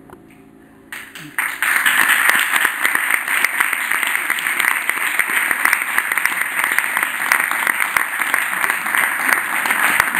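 Audience applause breaking out about a second and a half in, dense steady clapping that carries on, after the last piano chord dies away.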